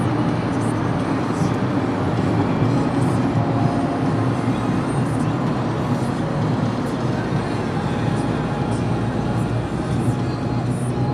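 Steady road and engine noise of a car at motorway speed, heard from inside the cabin.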